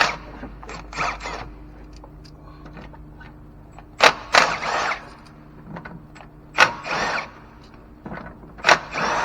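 Ignition coils being removed from a Nissan 1.6 four-cylinder engine by hand: four sharp clicks of connectors or clips letting go, each followed by a short scraping rustle as the part is worked free, over a faint steady hum.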